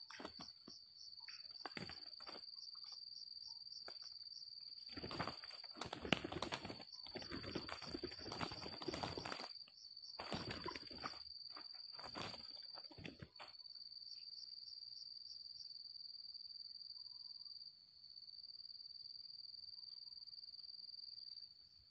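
Two junglefowl cocks fighting, a decoy rooster against a wild one: repeated bursts of wing-beating and scuffling through the first half, densest in a long flurry near the middle, then stopping. A steady, high, even insect drone runs underneath.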